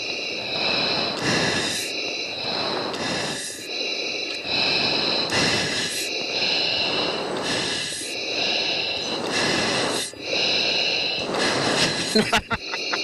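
Heavy breathing through an F-16 oxygen mask's microphone on the cockpit intercom: a regular rhythm of breaths about every two seconds, each with a hiss of oxygen flow through the mask regulator. A few sharp clicks come near the end.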